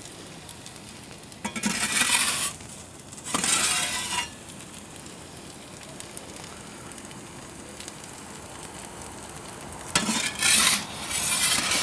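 Steady hiss from the Gozney Dome pizza oven's flame, broken by loud bursts of rushing, scraping noise: about a second and a half in, again around three and a half seconds in, and near the end as a metal pizza peel goes in at the oven's mouth.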